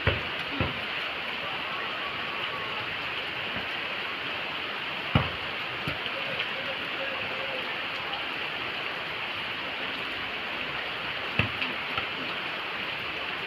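Steady rain falling, an even hiss, with a few dull thuds scattered through it, the loudest about five seconds in.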